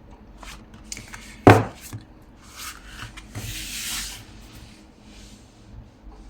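Paper and cardstock being handled and folded on a desk: a sharp knock about a second and a half in, small taps, then a rubbing rustle of paper being slid and creased.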